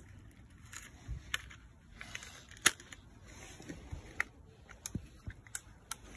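Scattered sharp clicks and light handling noise from a plastic blister pack of new disc brake pads being opened, with one much louder click a little under halfway through.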